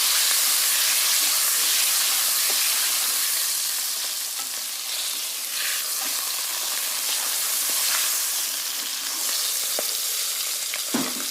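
Food frying in hot oil in a pan, a steady sizzle with small crackles and occasional stirring, and one low knock near the end.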